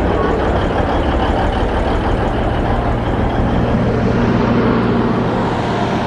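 Alishan Forest Railway diesel locomotive engine running, a loud steady rumble; about four seconds in a steadier low hum comes through.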